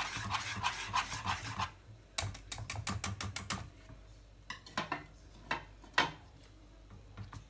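Wire whisk beating thick lemon cream in a pan, its wires clicking rapidly against the pan, followed by a quick run of sharper clicks and then a few separate knocks.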